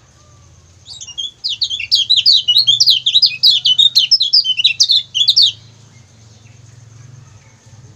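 Kecial kuning (lemon-bellied white-eye) giving a fast run of high, chattering 'ciak ciak' calls, starting about a second in and lasting about four and a half seconds before stopping abruptly.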